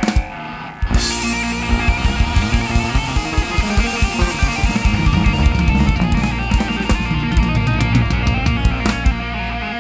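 Live rock band: electric guitar through a Marshall amp over a drum kit. After a brief lull at the start, the full band comes in about a second in and plays on with a steady drum beat.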